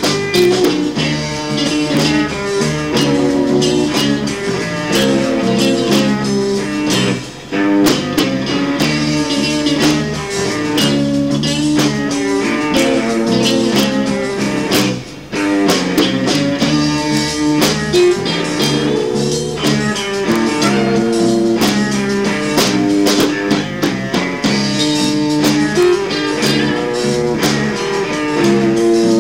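Live band playing an instrumental blues-rock passage: guitar lines over drums, with no singing.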